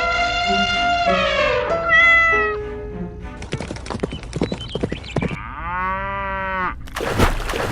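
A long, meow-like animal call that drops in pitch at its end, then a clatter of clicks, then a shorter pitched call that bends up and back down.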